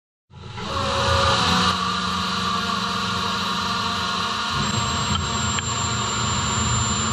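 CNC machining centre drilling screw holes under flood coolant: a steady mix of spindle and cutting noise with the hiss of coolant spray. The sound comes in abruptly just after the start, and a thin high whine joins it about two-thirds of the way through.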